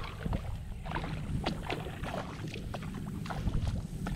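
Hooked speckled trout thrashing and splashing at the surface beside a kayak as it is brought to the landing net: a run of short, sharp splashes over a steady low rumble.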